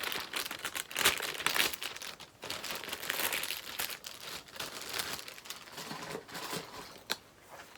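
Packaging crinkling and rustling as it is handled, in irregular bursts that thin out towards the end, with one sharp click near the end.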